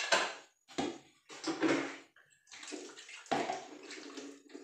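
Water running and splashing in several short spells.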